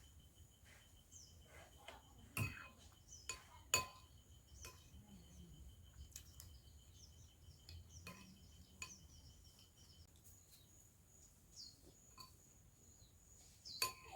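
Spoon or cutlery clinking against dishes several times while eating, the sharpest clinks about two and a half and four seconds in and again near the end. Under it, a steady high insect trill that stops partway through, and scattered bird chirps.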